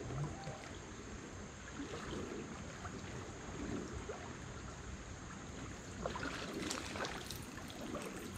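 Shallow river water running steadily over a rocky riffle, with a few light clicks about six to seven seconds in.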